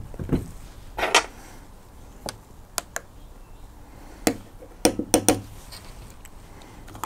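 An electric kettle set down on the table with a dull knock, then a spoon stirring coffee in a glass French press, clinking against the glass: a scattering of sharp clinks, with a quick cluster of three a little past the middle.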